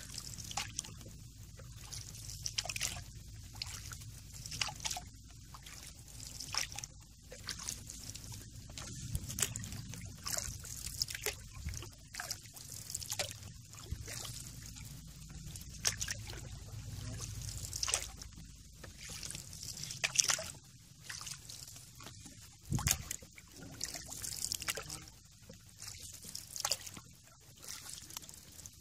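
Canoe paddle strokes about every two seconds, water sloshing and trickling off the blade between strokes, over light rain falling on the water. One dull knock about two-thirds of the way through.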